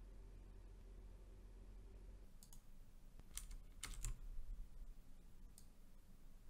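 A handful of faint, sharp computer clicks from mouse and keyboard use, most of them bunched between about two and a half and four seconds in, over a low steady hum that drops away about two seconds in.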